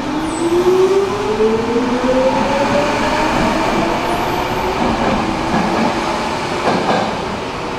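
Stockholm metro train pulling out of an underground station. The traction motors' whine rises steadily in pitch over about three seconds as it accelerates, over the steady noise of the cars rolling past the platform.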